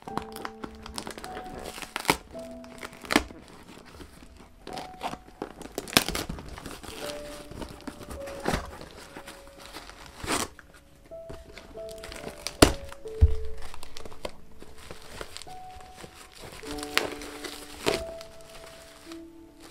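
Plastic packaging crinkling and tearing as a parcel is unwrapped by hand, with irregular rustles and a few sharp knocks, the loudest about two-thirds of the way through. Soft background music with held notes plays underneath.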